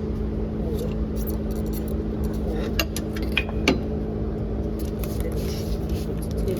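A long steel pry bar clinking and scraping against the pulleys and bracket while levering off the fan belt of an Isuzu NPR diesel, with a few sharp metal clicks about three seconds in. A steady low hum runs underneath.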